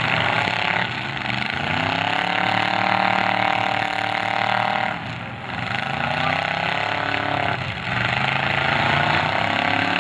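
Demolition derby cars' engines revving hard as they push against each other, the pitch climbing and dropping back about three times.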